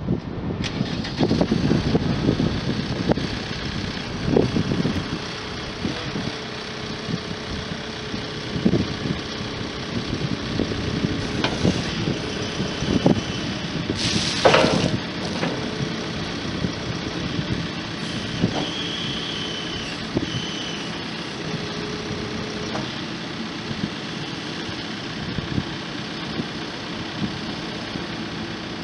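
Case 580 Super N backhoe loader's diesel engine running, with scattered clunks through the first half and a brief hiss about halfway through.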